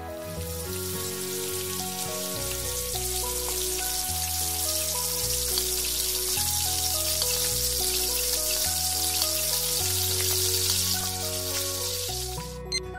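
A spiral of churro dough sizzling as it deep-fries in hot oil, with background music throughout. The sizzle dies away suddenly about a second before the end, as the churro is lifted out of the oil.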